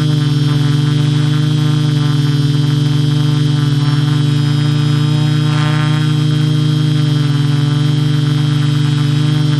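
Quadcopter's electric motors and propellers running in a hover: a loud, steady buzzing hum of several pitches held level, picked up by the camera mounted on the craft.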